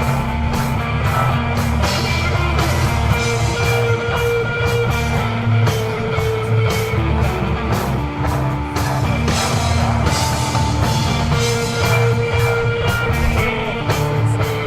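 Live instrumental desert rock from a guitar, bass and drums trio: long, sustained electric guitar notes over a steady bass line and drum kit.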